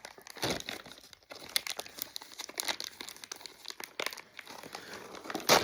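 A plastic blind-bag wrapper for toy figure parts being crinkled and torn open by hand: irregular crackles, with a louder crackle near the end.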